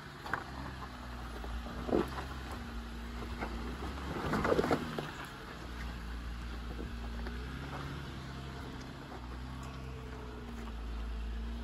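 Off-road vehicle's engine running at low, steady revs on the trail, with a few sharp knocks. The loudest cluster of knocks comes about four and a half seconds in.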